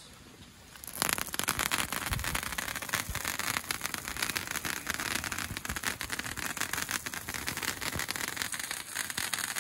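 Big Fireworks VIP novelty sparkler catching about a second in, then burning with a steady hiss and dense crackle as it throws draping sparks.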